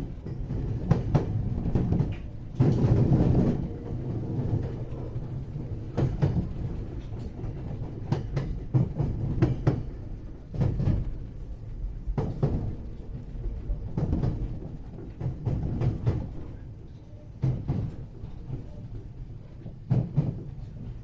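Interior running sound of a JR-type 521 series electric multiple unit: a steady low rumble of wheels on rail, broken by irregular sharp clacks as the wheels pass over rail joints and points.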